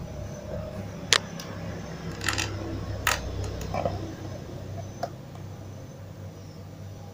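Small sharp clicks and taps from a soldering iron and hands working over a TV circuit board while cracked solder joints are resoldered, about half a dozen of them, the loudest about a second in, over a steady low hum.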